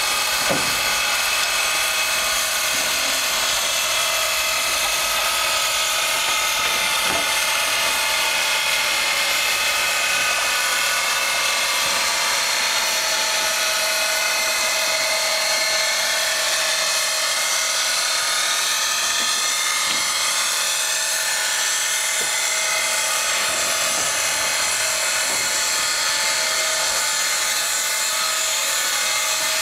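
East Broad Top Mikado No. 15 steam locomotive standing with steam up: a steady high whine and hiss made of several slightly wavering tones.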